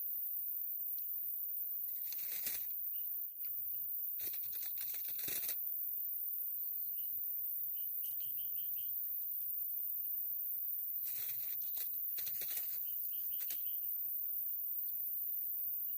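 Several short rustling, tearing-like bursts, each under about a second and a half, over a steady high hiss and small repeated chirps.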